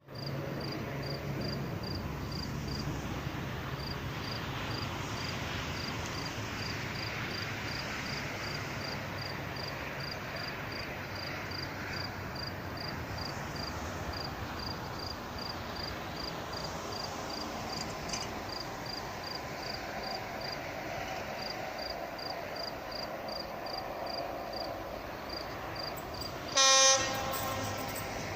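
Heavy electric freight train running along the line with a steady rumble, then one short, loud blast of the locomotive's horn near the end.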